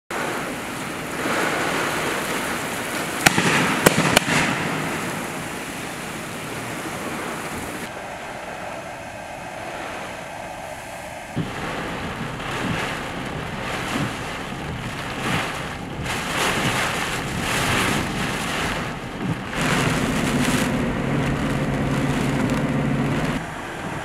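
Hurricane-force wind gusting and heavy rain, with a few sharp cracks in quick succession about three to four seconds in, and a low steady hum near the end.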